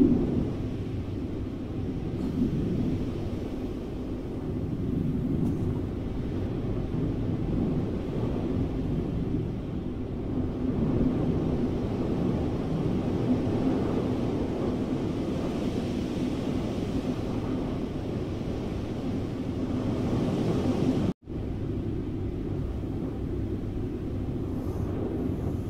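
Steady low rushing rumble of wind, the sound of flight through the clouds. It cuts out for a split second about 21 seconds in.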